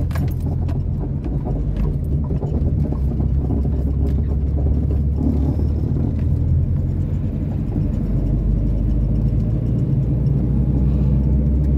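Ford Del Rey's engine running and road noise heard from inside the cabin as the car pulls away from a green light and drives on: a steady low hum.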